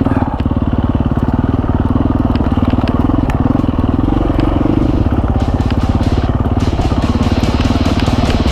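Husqvarna FE350s dirt bike's single-cylinder four-stroke engine running at a steady, fairly low speed while riding down a rocky trail, with scattered sharp clicks and knocks throughout.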